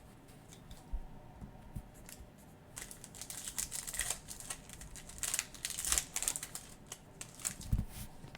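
A foil trading card pack wrapper crinkling and tearing open, with a few light clicks of cards being handled first.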